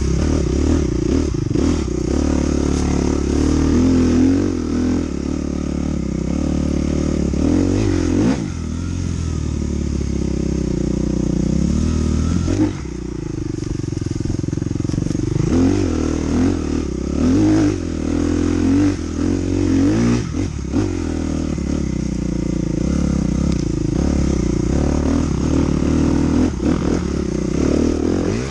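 Dirt bike engine under way, revving up and down over and over as the throttle is opened and closed.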